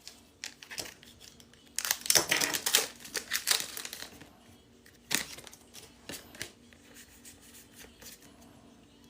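Foil Pokémon booster pack wrappers crinkling and tearing open, loudest for about two seconds in the first half, followed by a few sharp clicks and softer rustles.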